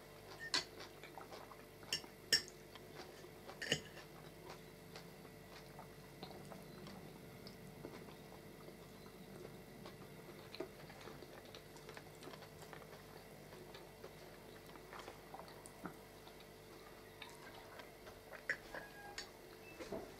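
Cutlery clinking and scraping on plates during a meal: a few sharp clinks in the first four seconds, then scattered faint clicks, over a faint steady hum of room tone.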